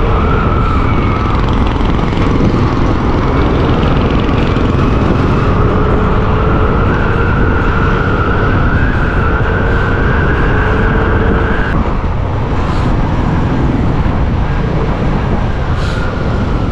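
Motorcycle running at cruising speed, with heavy wind rumble on the microphone. A steady engine whine holds and creeps slightly higher, then drops out about twelve seconds in.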